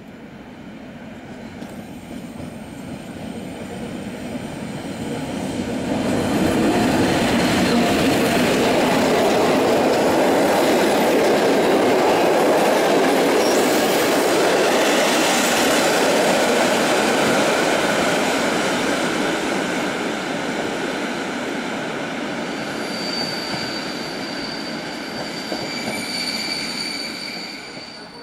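PKP Intercity passenger train, an electric locomotive hauling coaches, running past: the rumble of wheels on rail builds over about six seconds, stays loudest as the locomotive and coaches go by, then slowly fades. High wheel squeal rings over it in the last few seconds.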